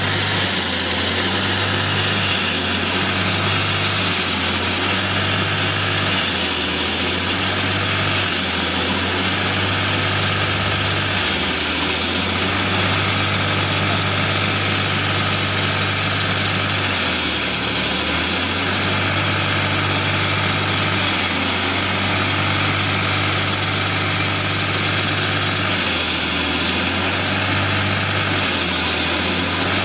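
Diesel engine of a walk-behind concrete floor saw running steadily, with a hiss over it. Its low note changes briefly every few seconds.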